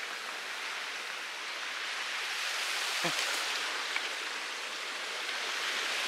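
Steady rush of flowing water, with a brief faint sound about three seconds in.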